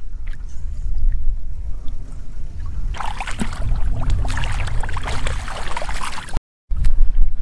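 Hands splashing and sloshing in shallow muddy water while groping for fish, with a low wind rumble on the microphone. The splashing becomes dense and busy about three seconds in, then the sound cuts out briefly near the end.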